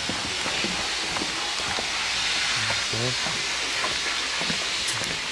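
Steady hiss of steam escaping from a steam locomotive standing in steam.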